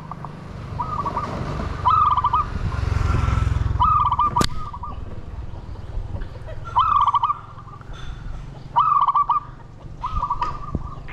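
Green pigeons calling: short warbling whistled phrases, all near the same pitch, repeated every second or two. Wind rumbles on the microphone for a couple of seconds early on, and a single sharp snap comes about four seconds in.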